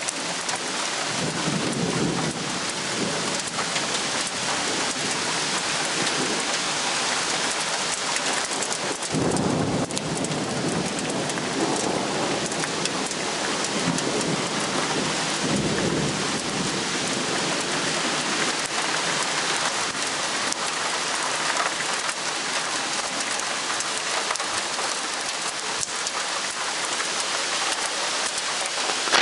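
Steady rain falling, with thunder rumbling low several times, the strongest rumbles starting about nine seconds in and running on to around sixteen seconds.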